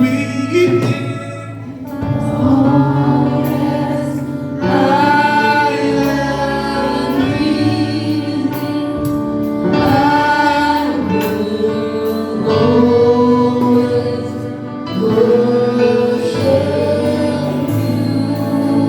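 Gospel choir singing over sustained instrumental accompaniment, with long held notes.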